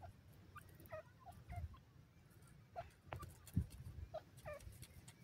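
Grey francolin (teetar) giving a scattered series of about ten quiet, short, slightly downward-slurred chirps while foraging, with a few low thumps, the loudest about three and a half seconds in.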